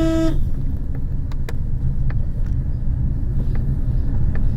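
Car driving on a mountain road, with a steady low engine and road rumble. Right at the start a car horn gives one short beep, and there are a few light scattered clicks.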